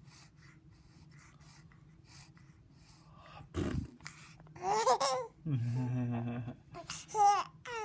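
Young baby cooing and giving short, high-pitched happy squeals, with a sharp gasp about three and a half seconds in; a lower voice sounds briefly in the middle.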